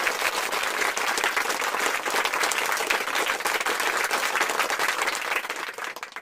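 Crowd applause, many hands clapping in a dense steady patter that cuts off abruptly at the end.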